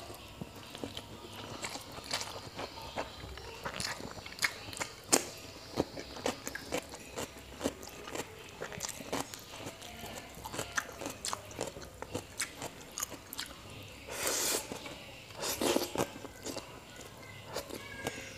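Close-up eating of mie goreng (Javanese fried noodles): wet chewing and mouth clicks as noodles are sucked in and chewed, with two louder, longer noises about 14 and 16 seconds in.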